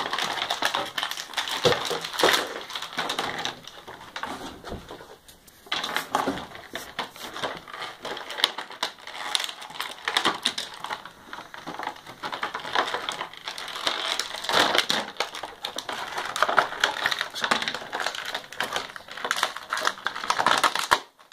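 Clear plastic bag crinkling and rustling as it is handled, with many small irregular clicks. It goes quieter for a moment about four seconds in, then starts again.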